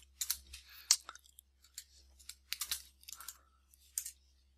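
Computer keyboard keys tapped one by one, about ten light, unevenly spaced clicks, as a short word is typed.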